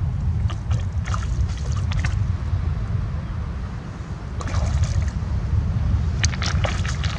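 A cast net being hauled in through shallow water, splashing and sloshing in short bursts as the net and the tilapia caught in it are dragged toward the bank, over a steady low rumble.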